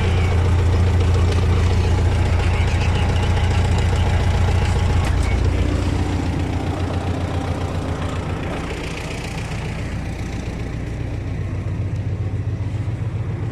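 T-40 tractor's diesel engine running steadily with a low, even knock, easing to a quieter note about six seconds in.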